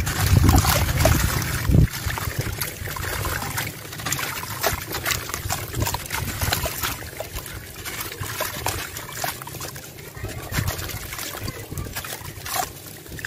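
Wet sand-and-cement chunk crumbling in bare hands, with gritty sand and water trickling and pattering down into a tub of water. It opens with heavier sloshing and splashing for about the first two seconds, as the block comes up out of the water, then settles into a steady crackle and trickle of falling grit.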